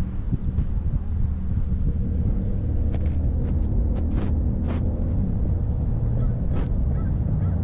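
Steady low rumble of skateboard wheels rolling on a concrete floor, with a few faint clicks scattered through it.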